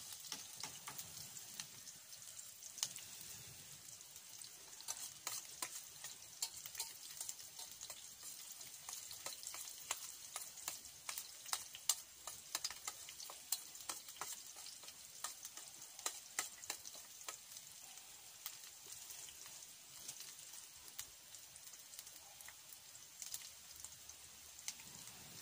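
Sliced red onions sizzling in oil in a steel pan over a wood fire, a steady hiss dotted with frequent sharp crackles. A spoon stirs and scrapes them in the pan.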